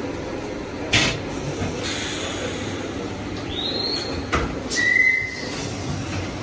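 Steady background hum of a train standing at a station platform. Two sharp knocks come about a second in and again a little past four seconds. Two short high tones sound midway: the first rises and holds, and the second is lower and steady.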